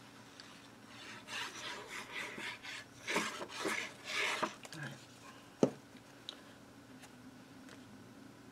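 The nozzle of a liquid glue bottle scrapes and rubs across cardstock in several quick strokes as glue is squeezed out in zigzag lines. This is followed about halfway through by a single sharp knock.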